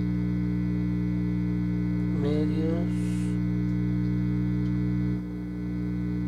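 Steady electrical hum and buzz from an amplifier and a cheap distortion pedal with an electro-acoustic ukulele plugged in. About two seconds in, a brief run of a few rising notes is plucked through the distortion. A little after five seconds the hum dips for a moment and comes back slightly quieter.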